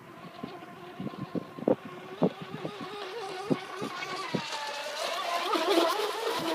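Radio-controlled speedboat's motor running at speed, a steady pitched note that grows louder as the boat closes in, shifting in pitch near the end as it passes close by. Scattered short sharp knocks come in over the first few seconds.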